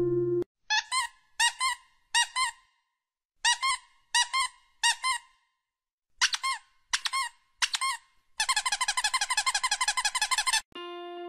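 High-pitched rubber squeaky-toy squeaks, matched to a hand squeezing an alpaca's nose. They come singly and in twos and threes with short gaps, then a fast run of about ten squeaks a second near the end.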